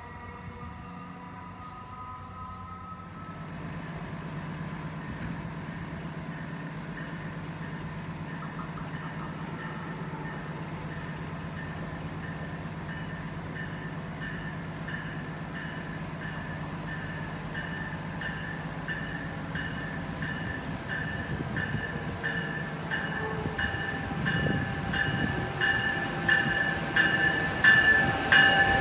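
Amtrak ACS-64 electric locomotive and its passenger train approaching along the track, growing steadily louder. A high whine pulses stronger and faster as it nears the platform.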